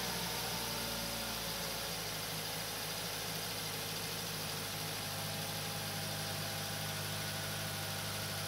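2006 Mazda 5's four-cylinder engine idling just after start-up, running on a freshly fitted EGR valve. The idle note shifts slightly in the first second or two, then holds steady.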